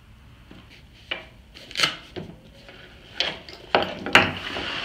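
Fabric tool-roll case being unfastened and unfolded: a few short rasping rips of hook-and-loop strips pulling apart, with fabric rubbing and the tools inside shifting. The loudest rip comes a little after four seconds in.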